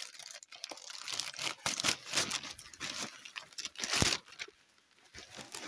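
Wrapping paper being torn and crumpled as a present is unwrapped: irregular rips and crinkles, the loudest rip about four seconds in.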